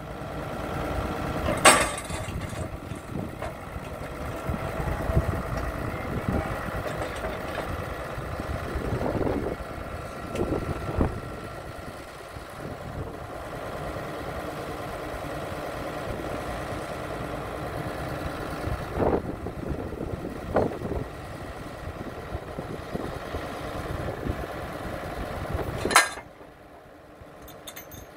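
Engine of a Morooka MST800 tracked carrier running steadily, with a few sharp knocks. The loudest knocks come about two seconds in and near the end, and the engine sound drops after the last one.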